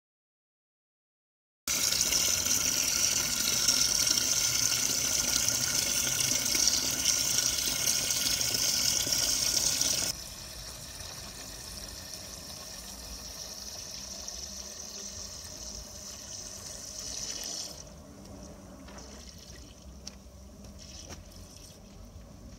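Water running in a steady rush, loud at first, then cutting suddenly to a quieter flow about ten seconds in, which fades lower again near the end.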